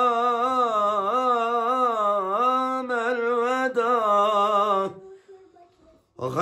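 A man singing a Turkish Ramadan ilahi unaccompanied, drawing out long vowels in ornamented, wavering turns of melody without clear words. The voice breaks off about five seconds in for a short breath, then comes back with a rising note just before the end.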